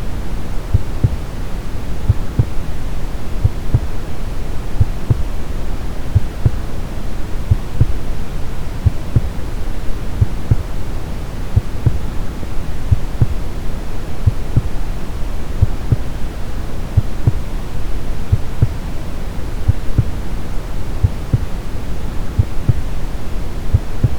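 Brown noise, a steady deep hiss, with a heartbeat sound beating over it in regular, even low thumps.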